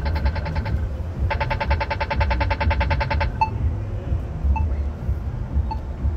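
Polara accessible pedestrian push button sounding its rapid tick, the walk indication: fast, even ticks about ten a second. One run ends just under a second in, and a second run of about two seconds follows. Then the slow locator tick takes over, about once a second, over a low rumble.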